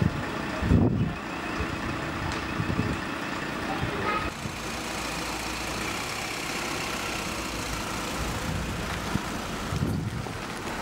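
Outdoor street ambience: a steady rumble of motor vehicles, with a louder low swell about a second in and another near the end.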